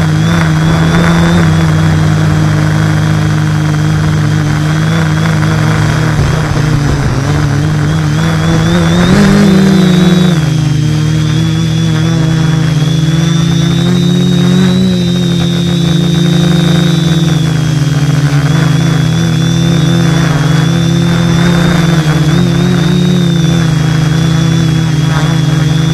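Motor and propellers of a small radio-controlled aircraft, heard up close from its onboard camera: a steady low drone with a thin high whine above it, swelling and rising in pitch briefly about nine seconds in, then settling back.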